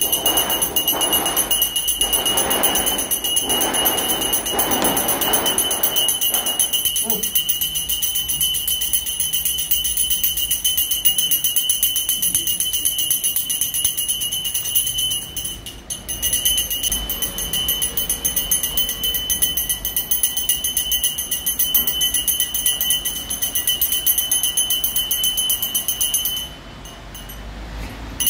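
Puja hand bell rung continuously, a steady high ringing that breaks off briefly twice, about halfway and near the end. Faint voices under the ringing in the first few seconds.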